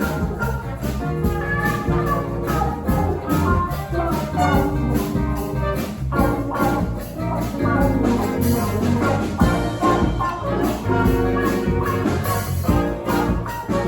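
Live brass street band playing an instrumental tune: horns holding and moving through notes over a steady drum and percussion beat.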